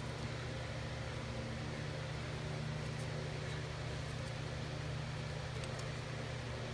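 A steady low mechanical hum, even in level throughout, with a few faint light clicks.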